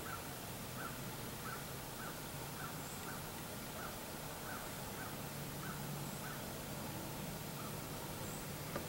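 A distant animal calling: one short call repeated evenly, about three times every two seconds, over a steady hiss. A faint low hum comes in about halfway, and a single sharp click sounds near the end.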